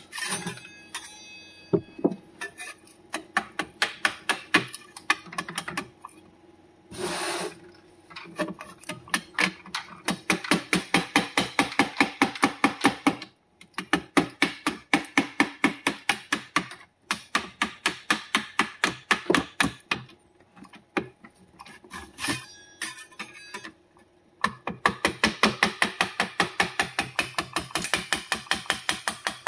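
Steel putty knife scraping and chipping a plastic 3D print off a printer's heated bed, in fast runs of sharp strokes, several a second, broken by a few short pauses; the print is stuck fast to the bed in places.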